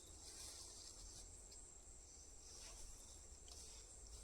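Faint, steady high-pitched chirring of insects in the background, near silence otherwise.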